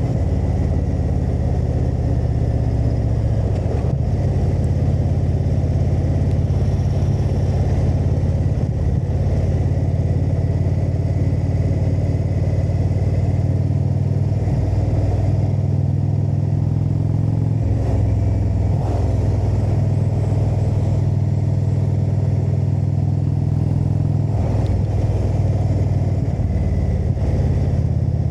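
Indian motorcycle's V-twin engine running under way at a steady cruise, heard from the rider's seat. The engine note shifts briefly a few times, around the middle and again near the end.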